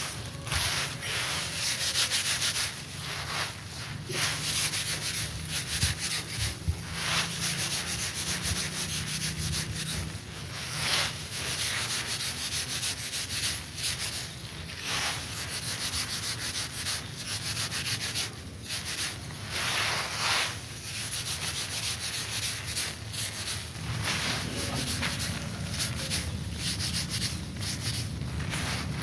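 Dry rice stalks and straw rustling and scraping in a continuous dense crackle, with louder swishes every few seconds.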